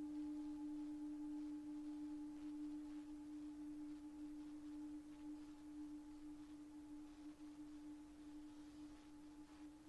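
One low, steady ringing note from a struck metal meditation instrument, with fainter higher overtones, slowly fading away.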